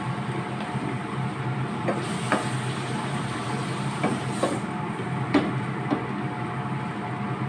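Chicken simmering in soy sauce and water in a frying pan, stirred with a wooden spatula that knocks against the pan several times, over a steady low hum.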